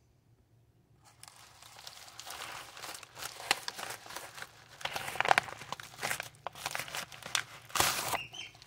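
Crinkling of a blue plastic bubble mailer being opened and handled, starting about a second in, with a folded paper insert rustling as it is pulled out near the end.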